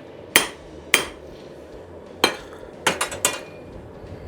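Blacksmith's hammer striking steel on an anvil: six ringing blows at an uneven pace, the last three in quick succession.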